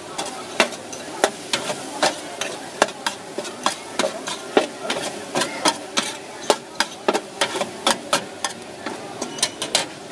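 A metal spatula and fork clanking and scraping against a steel wok while noodles and vegetables are stir-fried, with quick, irregular clacks over a light sizzle.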